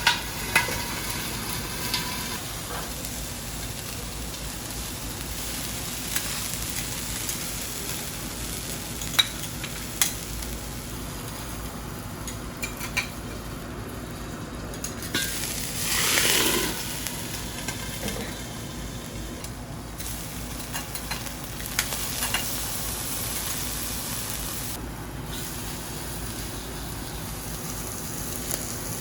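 Food sizzling steadily on a teppanyaki griddle, with occasional sharp metal clicks from the chef's spatula on the hot plate. A louder hiss swells for about a second midway through.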